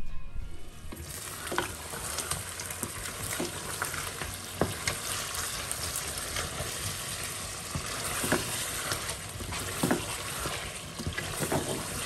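Mutton korma sizzling in a pot at the bhuna (frying-down) stage while being stirred with a spoon. Steady sizzle with scattered clicks of the spoon against the pot.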